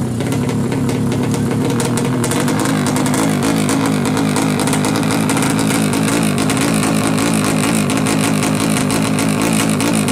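Drag-racing motorcycle engine running loudly, its revs rising and falling throughout with a crackly edge.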